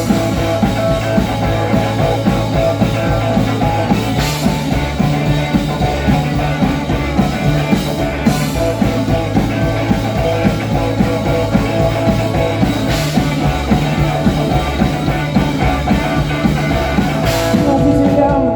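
Rock band playing an instrumental passage between verses, with a steady drum beat under bass and guitar and a cymbal crash every four to five seconds.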